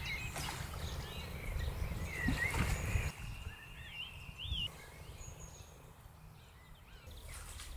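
Birds singing, with a low wind rumble on the microphone that dies away about three seconds in.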